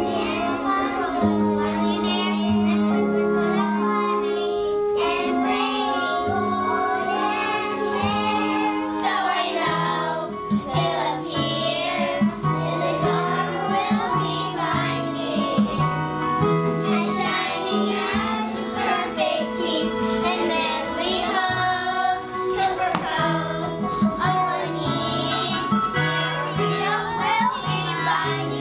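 A group of children singing a musical-theatre song together over instrumental accompaniment; about ten seconds in the accompaniment picks up a steady beat.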